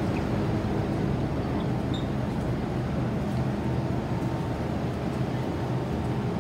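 Steady low hum and rumble of an MTR M-Train standing at an underground platform with its doors open.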